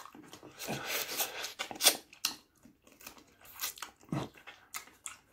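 A man chewing and biting food close to the microphone: irregular crunching bites and chewing noises.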